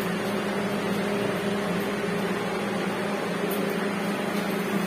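A steady mechanical hum with an even low drone and a constant hiss underneath.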